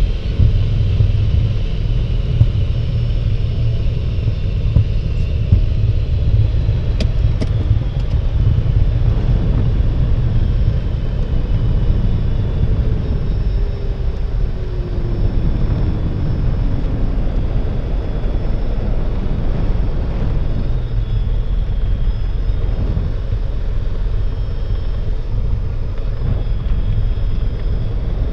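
Cabin noise of a single-engine high-wing light aircraft rolling out on the runway after touchdown: a steady low rumble of the piston engine and propeller near idle with rushing air. A tone falls slowly in pitch midway, and a few sharp clicks come about seven seconds in.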